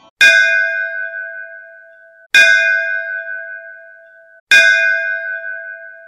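A bell struck three times, about two seconds apart, each strike ringing on with a few clear tones before being cut off short.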